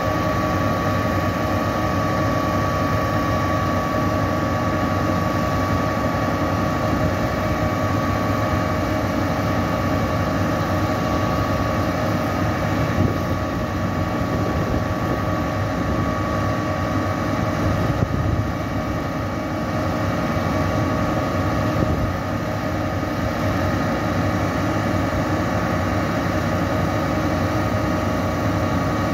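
Putzmeister truck-mounted concrete boom pump's diesel engine running steadily with a continuous high hydraulic whine while the boom is worked, as the newly repaired boom cylinders are put through their movements.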